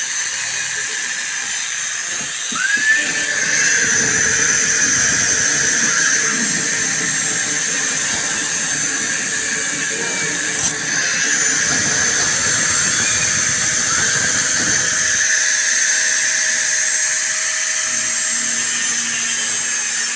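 High-speed power tool whining at a high steady pitch. It spins up with a rising whine about two and a half seconds in, then has a rougher grinding noise under the whine until about fifteen seconds in, as it works the metal.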